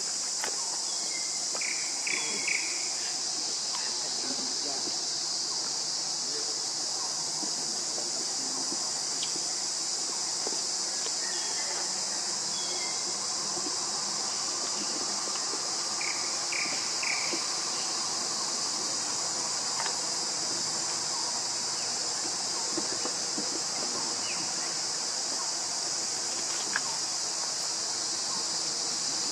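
A steady, high-pitched insect chorus drones without a break. Short triple chirps break in about two seconds in and again about halfway through.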